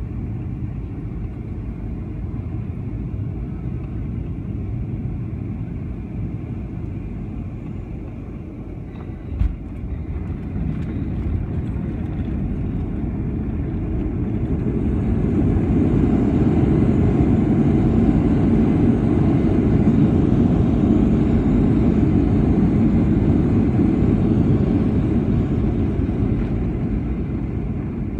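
Cabin noise of a Boeing 737 landing: a steady rumble, a sharp thump about nine seconds in as the wheels touch down, then the noise swells into a loud rushing roar of reverse thrust with the spoilers up, easing off near the end as the jet slows on the runway.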